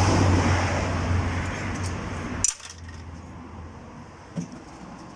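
Vehicle running noise with a steady low hum that cuts off abruptly about halfway through. After it, quieter background with a few light metallic clinks.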